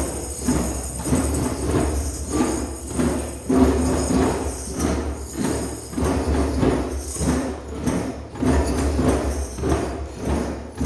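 A group of drums playing together in a steady driving beat, light taps alternating with deep booms, with jingling hand percussion on top.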